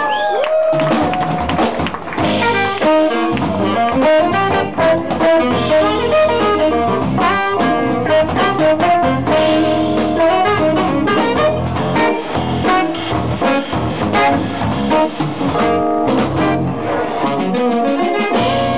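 Live jazz: a tenor saxophone plays fast runs over a band with a drum kit.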